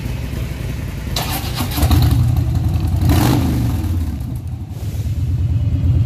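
Motorcycle engine running with a low, uneven rumble, getting louder about two seconds in as it revs.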